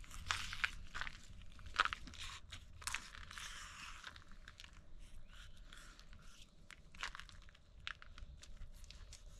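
Fillet knife working through whole mangrove snapper on a plastic cutting board: irregular crunching, scraping and clicking as the blade cuts through scales, skin and bone. The crunching is densest in the first few seconds, then comes in sparser strokes.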